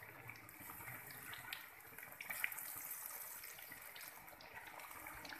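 Marinated chicken pieces deep-frying in hot oil in a wok: a steady sizzle full of small crackles and pops, with one sharper pop about two and a half seconds in.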